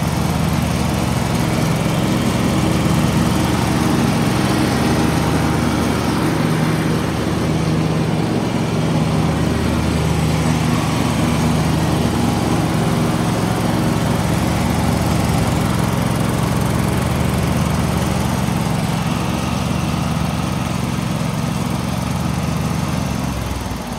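John Deere LT180 lawn tractor engine running steadily, dropping in speed just before the end.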